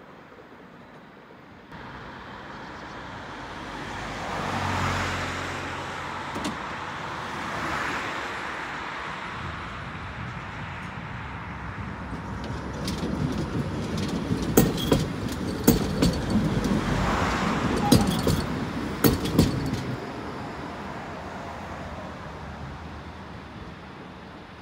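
Street traffic passing: two lighter vehicles go by, then a tram rumbles past close by, its wheels giving a run of sharp clacks over rail joints or points before the sound fades away.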